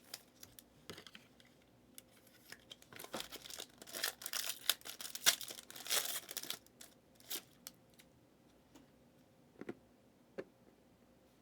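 Foil trading-card pack torn open and crinkled, a rustling stretch in the middle, followed by a few light clicks and taps of cards being handled.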